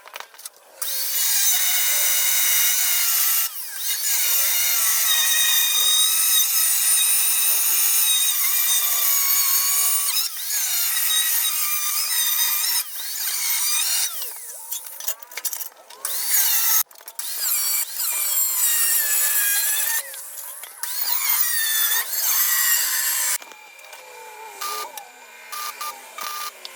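Power tool running in long bursts with a high, whining sound whose pitch wavers under load. It stops briefly several times and is quieter and more broken over the last few seconds.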